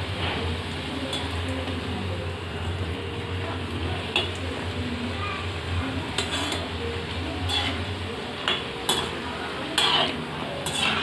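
Fuchka puris sizzling steadily as they fry in hot oil in a metal kadai. A perforated metal slotted spoon turns them, clinking and scraping against the pan several times in the second half, loudest near the end.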